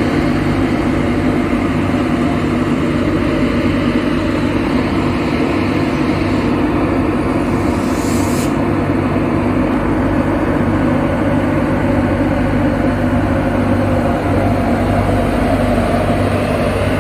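Class 91 electric locomotive pulling away from the platform: a loud, steady hum, with a tone that rises near the end as it gathers speed.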